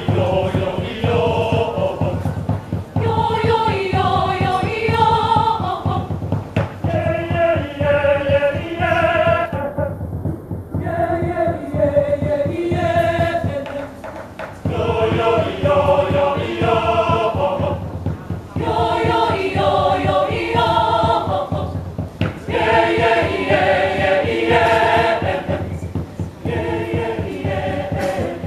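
Large mixed church choir of women and men singing, in phrases broken by short pauses about every four seconds.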